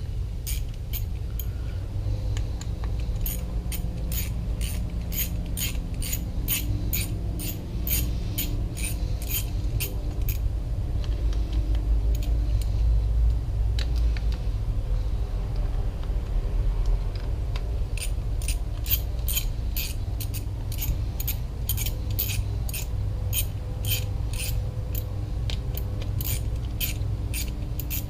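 Ratchet wrench clicking in quick, even strokes, about two or three clicks a second, as the bolts of a Mercury outboard's mechanical fuel pump are tightened down; the clicking stops for several seconds partway through and then resumes. A steady low hum runs underneath.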